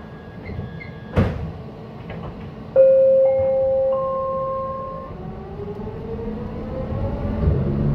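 SkyTrain car's electric drive starting the train from a stop in a tunnel: a sharp clunk about a second in, then a loud whine that steps up in pitch in three notes, changing into a smooth rising whine as the train gathers speed over a low rail rumble.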